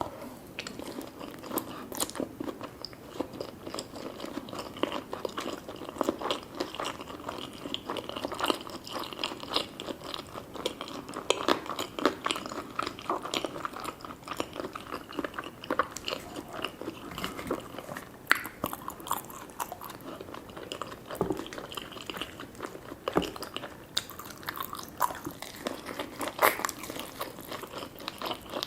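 Close-miked eating: a person chewing and biting food, with many sharp clicks and smacks at irregular intervals.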